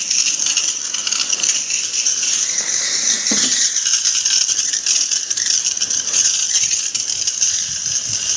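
Water from a garden-hose spray nozzle hissing steadily as it rinses a window-type air conditioner's coil and fan housing during cleaning.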